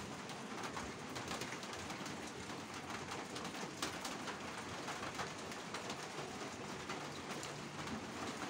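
A steady hiss with many small scattered ticks, and a dove cooing faintly and low near the end.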